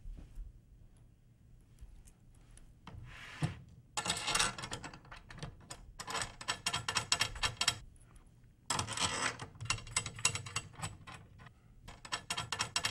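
Steel tension rods being spun by hand into the lug casings of a 16-inch floor tom, making rapid fine metallic clicking of the threads. It comes in two long stretches, from about four seconds in and again from about nine seconds in.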